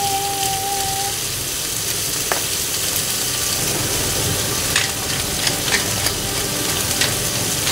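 Onion wedges and sausages sizzling steadily as they fry in a frying pan, with a few sharp clicks between about five and seven seconds in.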